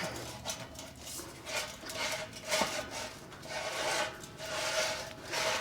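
Metal exhaust parts rubbing and scraping against each other in repeated strokes as the pipe and its bracket are worked into place.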